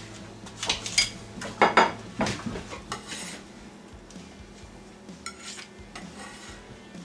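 Ceramic plates clinking and clattering as one is lifted from a stack and set down on a wooden counter, a handful of sharp knocks with the loudest about two seconds in. Then lighter taps and scrapes of a kitchen knife on a wooden cutting board as food is lifted onto the plate.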